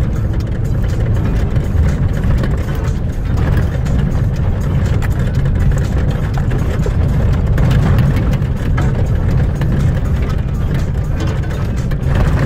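Truck driving through overgrown brush, heard from inside the cab: a steady low engine and road rumble, with constant crackling and scraping as tall grass and branches rake along the body.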